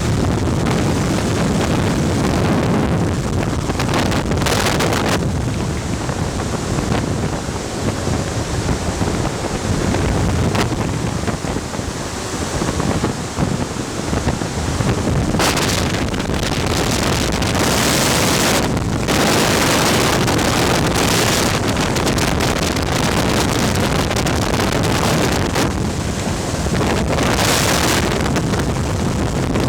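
Strong rushing airflow driven by a VOD-40 axial mine ventilation fan, buffeting the microphone as a steady loud rumble with hiss. The airflow surges in gusts a few times, around the middle and near the end.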